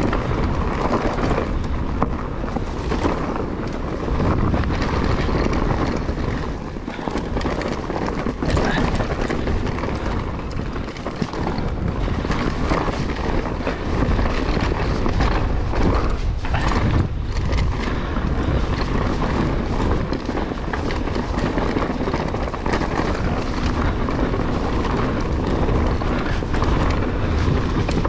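Wind buffeting the camera microphone, mixed with the tyres of a GT Force Carbon Elite full-suspension mountain bike rolling over dirt singletrack and the bike clattering and ticking over roots and bumps.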